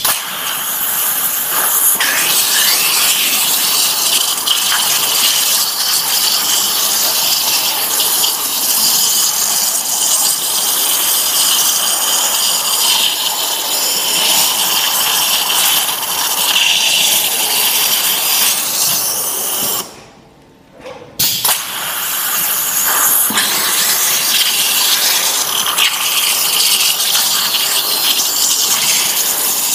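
Two water jets of a waterjet cutting machine cutting holes through 6 mm steel sheet: a loud, steady hiss that cuts off for about a second about two-thirds of the way through, then starts again.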